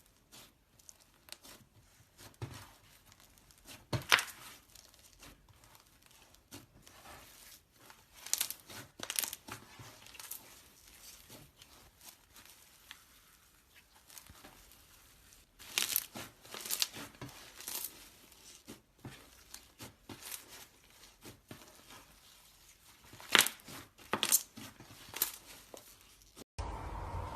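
Slime being handled: irregular sticky crackling and tearing noises in uneven clusters, loudest around a third of the way in and again near the end.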